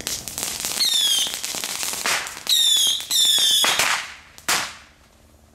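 Backyard consumer fireworks going off: rapid crackling pops with three short whistles, each dropping slightly in pitch, then one sharp bang about four and a half seconds in before the sound dies away.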